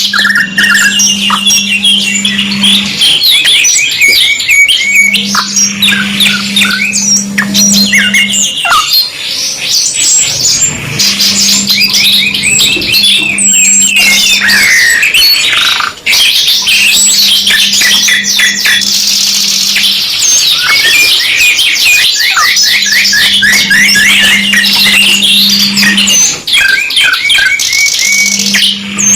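Two domestic canaries singing continuously in fast rolling trills and chirps. A low steady hum comes in and drops out every few seconds underneath.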